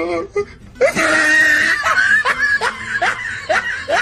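High-pitched laughter: a loud shrill burst about a second in, then a run of short rising "ha" sounds, about two or three a second.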